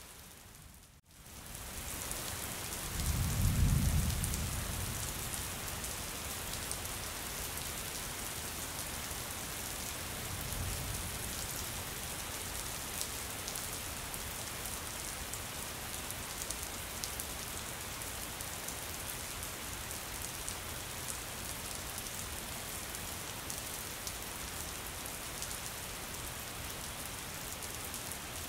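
Steady heavy rain pattering, with a brief dropout about a second in. A low rumble of thunder swells up a few seconds in, and a fainter rumble follows about ten seconds in.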